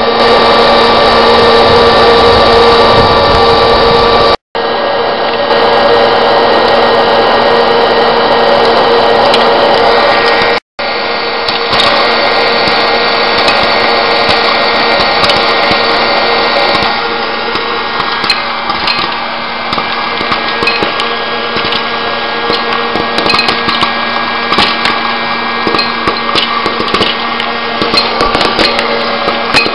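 Hot-air popcorn machine running with a loud, steady fan whirr. From a little past halfway, kernels start popping: quick, irregular pops over the blowing air.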